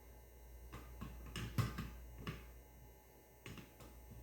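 Scattered light clicks and taps as small parts of a knife sharpener are handled and fitted, with a cluster of sharper clicks about one and a half seconds in and a single knock near the end.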